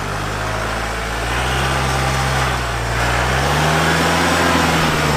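Kubota compact tractor's diesel engine running and pulling as the throttle is opened, its pitch and loudness climbing in two steps, about a second in and again near three seconds, while it turns on the held right brake with the front wheels sliding on the turf.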